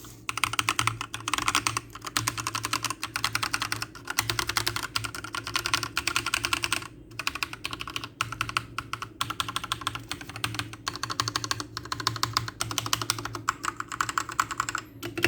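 Fast typing on an Akko 3087 V2 mechanical keyboard with Akko Pink linear switches, a sound test of the switches: quick runs of key clacks broken by short pauses every second or two.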